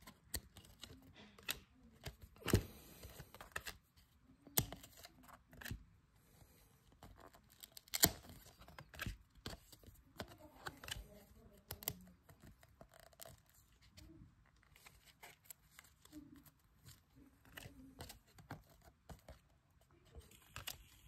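Glossy chrome-finish trading cards handled one at a time: soft sliding and rubbing of card against card, with irregular sharp clicks as cards are flicked to the back of the stack, the loudest about two and a half and eight seconds in.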